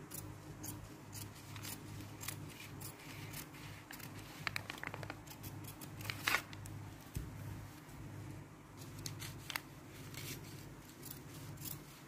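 Fabric scissors cutting lining fabric along a pinned paper pattern: a run of short, crisp snips at an irregular pace.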